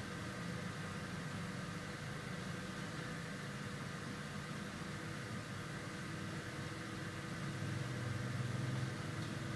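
A steady low hum with a faint hiss, swelling slightly for a second or so near the end.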